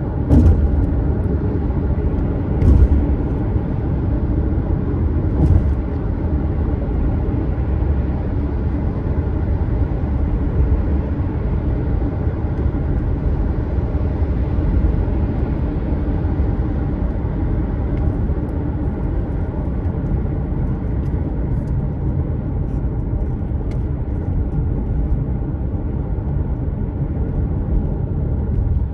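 Steady low road and engine rumble of a car driving at speed, heard from inside the cabin. Three short knocks come in the first six seconds.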